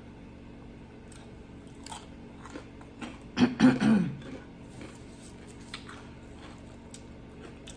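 A woman's short coughing fit, three quick coughs about three and a half seconds in. Faint chewing and mouth clicks around it.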